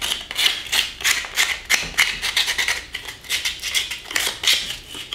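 Small piece of sandpaper rubbed by hand over the back of a scroll-sawn wooden piece in quick scratchy strokes, about four a second, knocking off the fuzz left where the saw blade came out.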